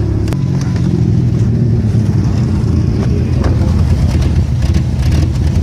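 Ford Ranger pickup's V6 engine running steadily while driving, with a sharp click about a third of a second in where the engine note shifts slightly.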